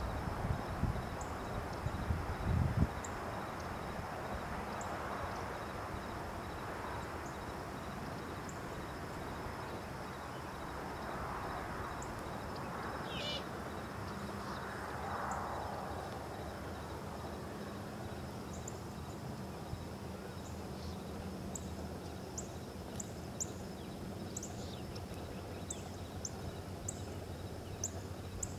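Quiet outdoor ambience: a steady hiss with a few low thumps in the first seconds, a brief high chirp about halfway through, and faint short high ticks that come more often in the second half.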